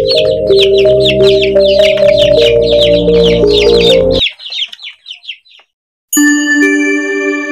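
Juvenile silkie chickens peeping rapidly, several high, falling peeps a second, over background music. The music cuts off about four seconds in and the peeping dies away soon after. After a brief gap, an outro jingle of sustained chiming tones begins near the end.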